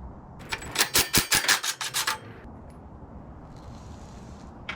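A socket being worked on the blade arbor nut of a Porter Cable table saw: a quick run of about a dozen sharp metallic clicks and knocks lasting under two seconds as the nut is loosened.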